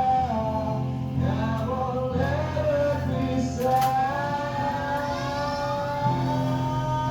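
Background music: a melody sung or played over held low notes, with a long note gliding slowly upward in the second half.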